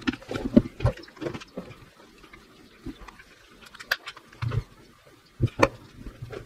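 Plastic housing halves of a Bosch GSR 120-LI cordless drill being handled, pressed together and pulled apart: irregular clicks and knocks, busiest in the first second or so, with one sharp click midway and a few knocks near the end.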